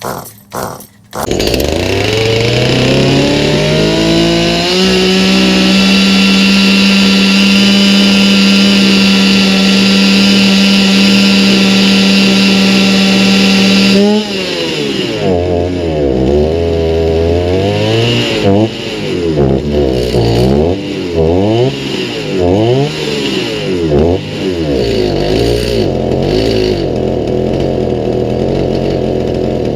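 Stihl MS290 two-stroke chainsaw engine starting about a second in and climbing quickly to a high, steady speed. About halfway through it drops sharply, then surges up and down repeatedly. It is running on a new aftermarket carburetor at its out-of-the-box mixture settings.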